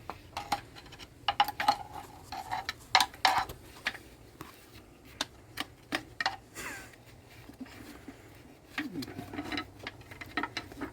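Irregular metallic clinks and knocks of hand tools against engine parts, some ringing briefly, with a short squeak partway through, as a stuck part on the engine is worked loose.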